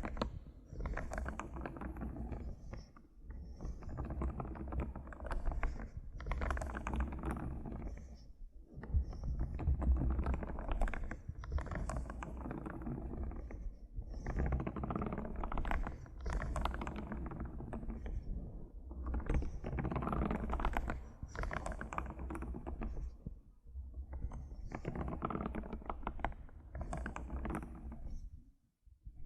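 Computer keyboard tapped close to the microphone: runs of quick key clicks with a deep thud to each stroke, a few seconds at a time, broken by short pauses.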